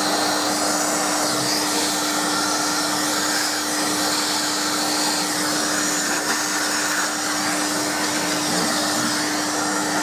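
Vacuum cleaner running steadily with a constant hum, its plastic nozzle sucking dust from inside a desktop computer case.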